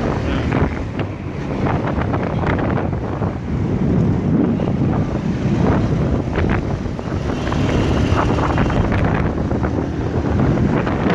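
Wind buffeting the microphone of a phone carried on a moving motorcycle, over a steady rush of engine and road noise.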